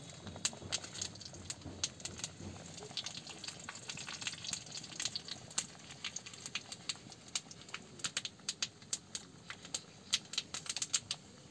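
Hot oil crackling and popping in a small pan as a dal tadka of bay leaves and dried red chillies fries: irregular sharp pops, several a second, coming thicker in the second half.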